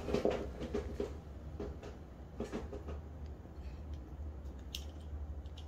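Scattered small clicks and scrapes of a Glock 19 Gen 5 pistol slide and its small parts being handled while the slide backplate cover is pushed off against the firing pin spring, with the sharpest clicks near the end, over a steady low hum.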